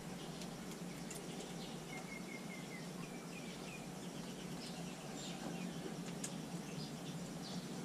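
Quiet outdoor ambience with a steady low hum and faint background noise. A small bird chirps a quick run of four short notes about two seconds in, then a few more falling chirps, with scattered faint ticks throughout.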